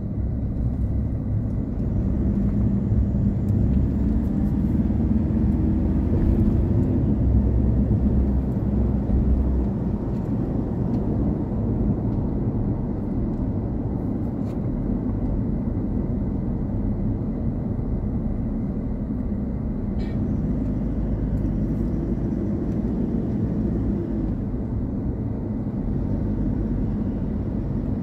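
Car driving on a paved road, heard from inside the cabin: a steady low rumble of engine and tyre noise, a little louder for the first ten seconds or so.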